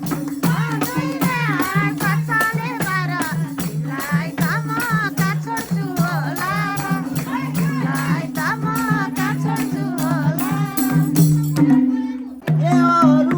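Nepali dohori folk music: a steady, quick percussion beat over sustained low notes, with a wavering melody line above. The music briefly drops out near the end, then comes back in.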